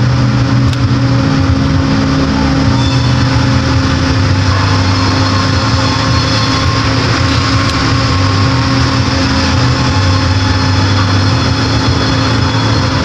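Sawmill band-saw headrig running as logs are squared up: a loud, continuous machine drone whose low pitch shifts a few times.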